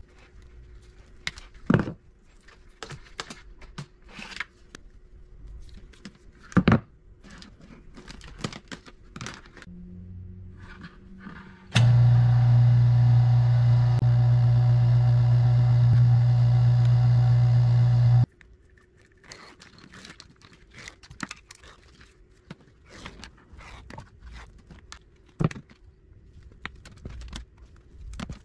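Bench-top electric wire-stripping machine running with a steady hum for about six seconds in the middle while wire is fed through it to strip the insulation off copper wire. Before and after it, scattered clicks and rustles of wire being handled.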